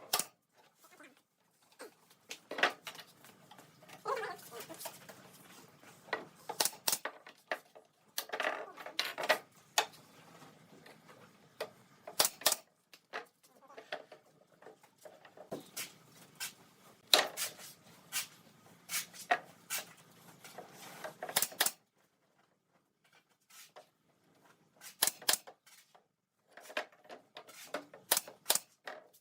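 Irregular sharp clicks and knocks, some in quick clusters, from hand work on wooden parts of a table, with a short quiet pause about two-thirds of the way in.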